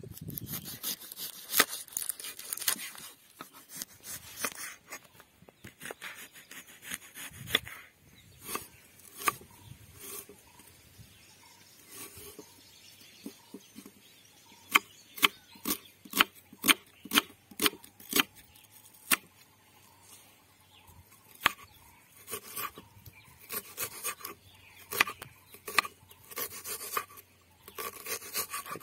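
Chef's knife cutting red onion on a wooden board: sharp taps of the blade against the board, about two a second, as the onion is sliced and then diced. A rustling clatter of handling comes before the cutting starts.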